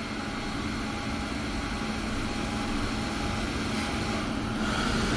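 Haas DS30SSY CNC lathe running, with a steady hum and the hiss and splash of flood coolant as it turns a 4340 steel bolt.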